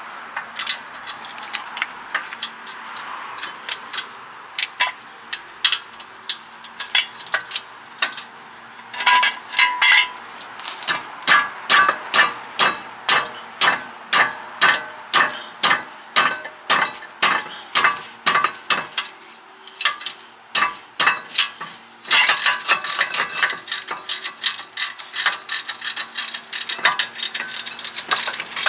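Socket ratchet clicking as the lower 15 mm bolt of a rear brake caliper support bracket is wound out. The clicks come sparsely at first, then in regular strokes, and turn to a fast, continuous run of clicking for the last several seconds as the bolt spins free.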